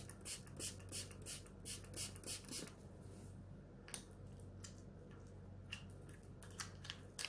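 Stirring a thick paste of cornstarch, cheese and rose water in a bowl as it binds into a cream: quick, even scraping strokes, about four a second, for the first couple of seconds, then only an occasional faint click.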